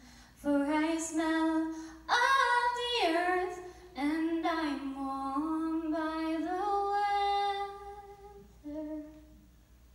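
A young woman's voice singing solo and unaccompanied into a microphone, long held notes that slide between pitches, fading out about nine seconds in.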